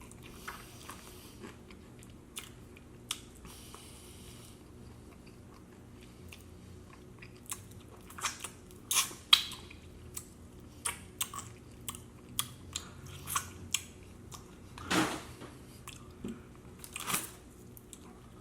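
Close-miked mouth sounds of someone eating chicken wings: wet smacking chews and bites. They are sparse at first, then come thick and loud for the second half.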